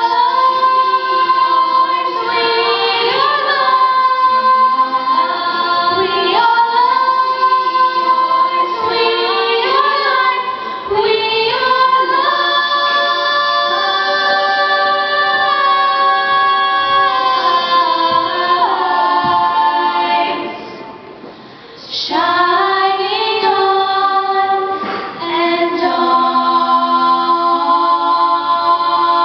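A vocal ensemble singing in harmony, moving through long held chords, with a brief break about two-thirds of the way through before the voices come back in together.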